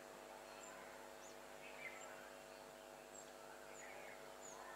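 Near silence: faint outdoor ambience with a steady low hum and a few scattered bird chirps.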